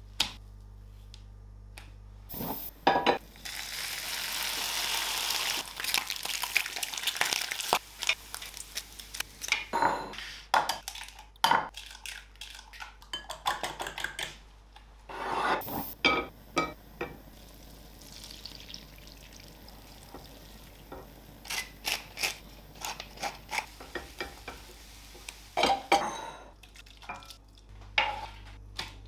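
Kitchen cooking sounds: utensils knocking and clinking against pans and bowls many times, with a few seconds of food sizzling in a hot pan near the start.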